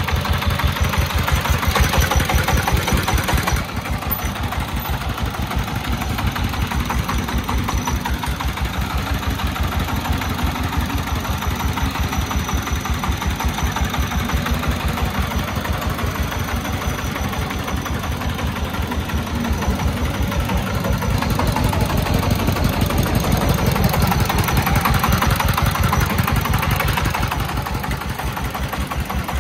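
Homemade three-wheeled công nông truck's small single-cylinder diesel engine running steadily as the brick-loaded truck is driven. Its firing beats come in a rapid, even chug. It dips briefly a few seconds in and grows louder for a stretch near the end.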